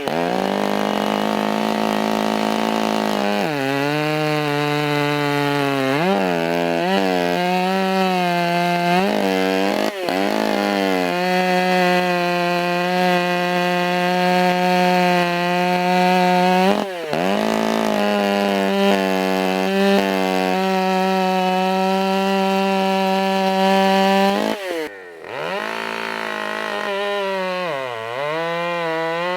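Ported Stihl MS 661 Magnum two-stroke chainsaw with a Hexa chain running at high revs, cutting white oak. Its engine pitch holds steady for long stretches and dips sharply several times, with a deeper dip and a brief drop in loudness near the end.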